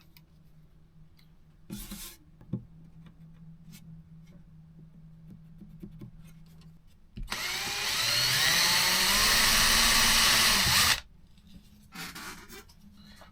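Power drill drilling holes, running for about four seconds with a whine that rises as it spins up, then stopping abruptly. A few faint knocks and handling sounds come before it.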